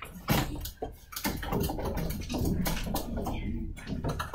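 Classroom hubbub: scattered knocks and clicks of children shifting at their desks and chairs, under low children's voices.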